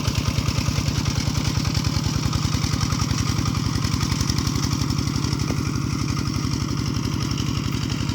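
Small diesel farm engine running steadily with an even, rapid beat.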